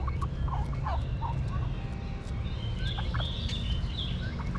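Short, quick bird calls, fowl-like, come in a run in the first second and again about three seconds in. A steady low rumble runs underneath.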